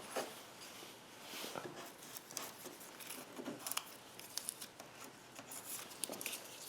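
Faint clicks, taps and rubbing of small wooden pieces being handled and fitted back together.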